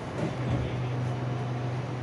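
Steady low hum of an SRT Red Line electric train standing at the platform, coming in about half a second in over a low background rumble.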